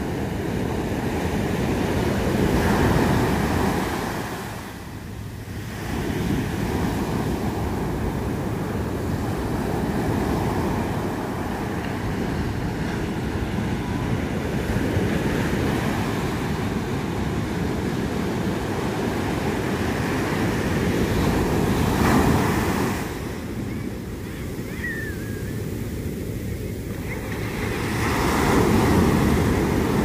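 Ocean surf breaking on a sandy beach and washing up the shore in a steady roar, swelling as waves break about three seconds in, around twenty-two seconds, and again near the end. Wind rumbles on the microphone underneath.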